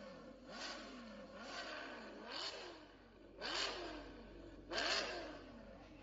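Car engine and exhaust revved in short blips about once a second, the pitch rising and falling with each one, the two near the end louder and rougher.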